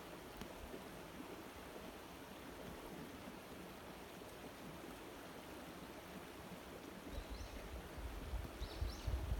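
Shallow river babbling steadily over stones. From about two-thirds of the way in, low rumbling gusts of wind buffet the microphone, with a few faint high chirps near the end.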